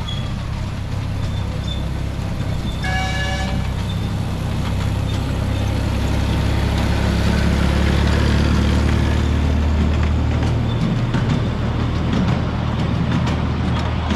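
Miniature railway locomotive running as it passes close by with its passenger cars, a steady low hum that grows louder and then eases off. About three seconds in the horn gives one short toot, and in the second half the wheels click over the track.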